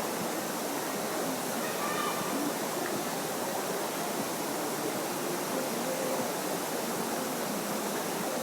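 Steady rush of flowing stream water, even and unbroken, with faint distant voices in the background.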